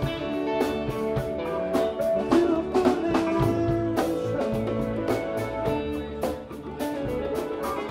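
Live band playing an instrumental passage with no vocals: electric guitars and bass over drum kit and congas, with a steady beat of drum and cymbal hits.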